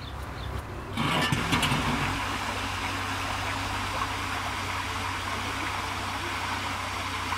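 Water rushing through a watermill's sluice as its rusty steel gate is lifted. The rush starts suddenly about a second in and then runs steadily.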